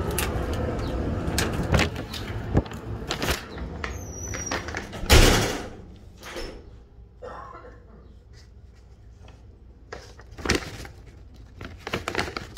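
A glass-paned entrance door being opened and shutting with a thud about five seconds in, after a few sharp clicks. The steady outdoor rumble drops away once it closes, leaving a quieter room with occasional knocks and paper rustles.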